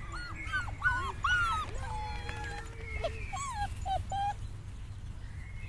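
German Pinscher puppies whining and yipping: a quick series of short, high cries that rise and fall, with one longer drawn-out whine partway through, dying away about four and a half seconds in.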